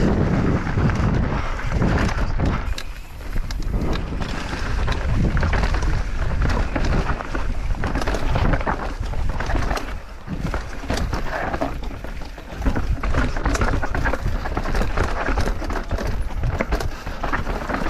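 Mountain bike riding fast down a rocky dirt trail: tyres rumbling and bumping over rocks, with frequent rattling clicks and knocks from the bike and wind buffeting the camera's microphone.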